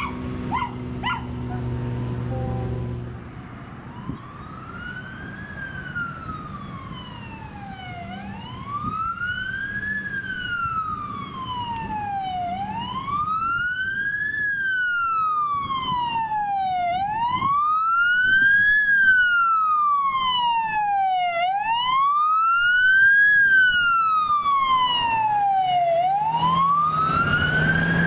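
An emergency vehicle's electronic siren in slow wail mode, rising and falling about every four and a half seconds and growing louder as it approaches. A vehicle engine rumbles for the first few seconds, and another engine rumble comes in near the end.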